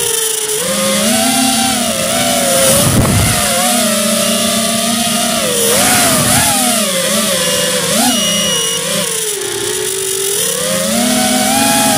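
Whine of an RC aircraft's electric motor in flight, its pitch rising and falling over and over as the throttle changes.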